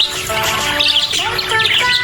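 Budgerigars chirping rapidly and continuously over a background song with held, stepping melody notes.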